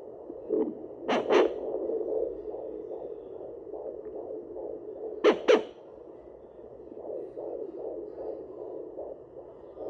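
Home fetal doppler's speaker giving its continuous fluttering whoosh as the probe searches the belly. Two pairs of loud crackles come from the probe, about a second in and again about five seconds in.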